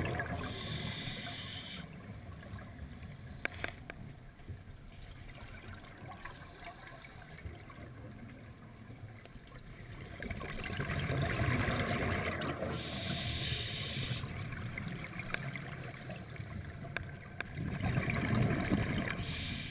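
Scuba diver's regulator breathing heard underwater: a short hissing inhalation every several seconds, and between them exhaled bubbles gurgling and rumbling as they pour out.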